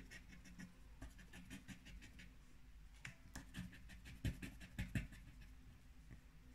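A blue plastic disc scratcher scraping the silver coating off a lottery scratch card in many quick, short strokes. Faint, with a few louder scrapes about four and five seconds in.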